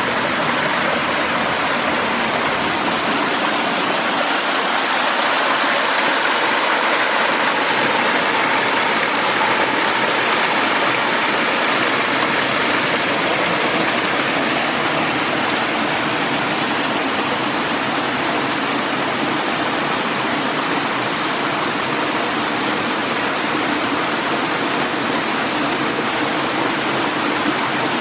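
Water of a stream and small waterfall rushing and splashing between boulders: a steady, even rush with no break.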